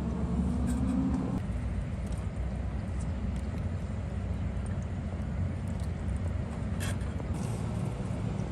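A vehicle engine running steadily with a low rumble; its note rises and then falls away about a second and a half in.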